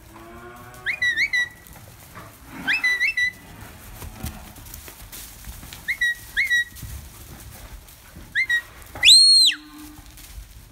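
Herding whistle commands to a working sheepdog: short, sharp whistles that flick up and down in pitch, mostly in pairs, repeated every couple of seconds. Near the end comes one long, loud whistle that rises, holds and falls.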